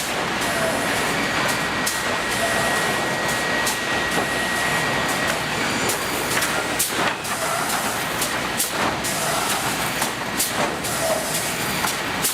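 Sawmill board-processing machinery running at the edger line: a steady mechanical clatter and rumble with repeated sharp knocks of boards and machine parts, and a faint high whine through roughly the first five seconds.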